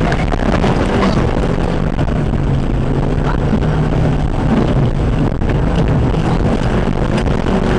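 Suzuki 4x4's engine running steadily under load, heard from inside the cabin as it climbs a rough track, with scattered knocks and rattles from the body over the bumps.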